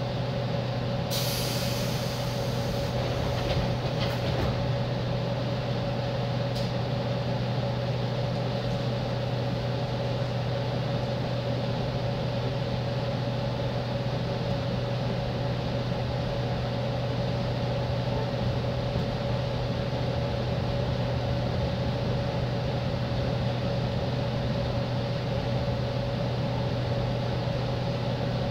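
On board a JR East 205-series electric commuter train: a steady electrical hum from the car's equipment, with a short hiss of compressed air about a second in that fades away over a few seconds, and a single click a few seconds later.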